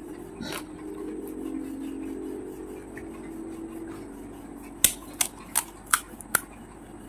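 Five sharp, crisp cracks in quick succession, about two a second, from the brittle shells of panipuri (fried puri) being broken open by hand. These follow a few seconds of a low steady hum.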